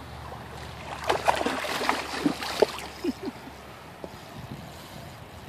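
A hooked salmon thrashing at the surface in shallow water, a burst of splashing for about a second and a half, with a few smaller plops just after.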